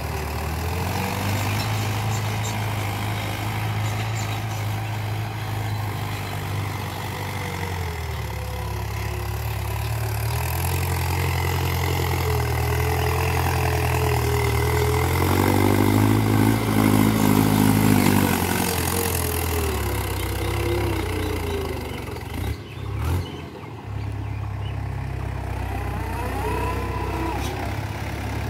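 Mahindra tractor's diesel engine running under load as it pulls a cultivator through the soil, its pitch rising and falling. It grows loudest about halfway through, and there is a short dip with a few knocks near the end.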